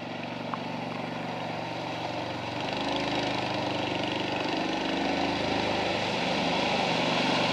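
ATV engine running steadily, growing gradually louder.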